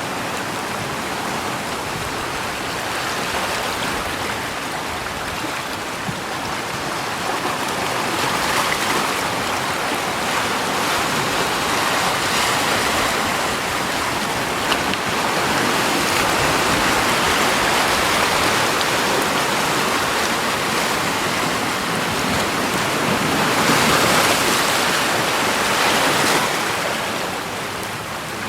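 Steady rushing water, an even hiss that swells louder a few times.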